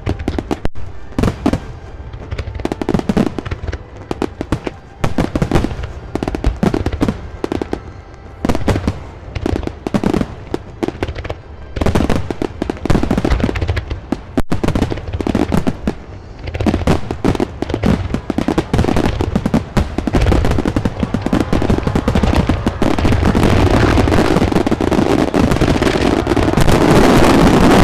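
Aerial fireworks bursting one after another in many sharp bangs, which build into a dense, unbroken crackling barrage over the last few seconds.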